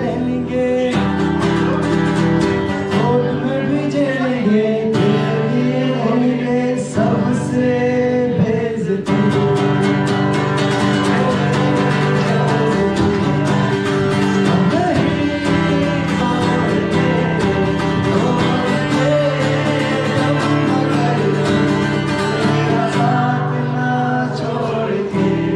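Music: a song with guitar accompaniment and a singing voice, sustained chords under a moving melody at an even level.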